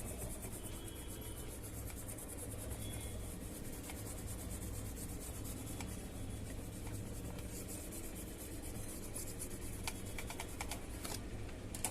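Faint rubbing and scratching as a TV circuit board is cleaned by hand, with a few light clicks near the end.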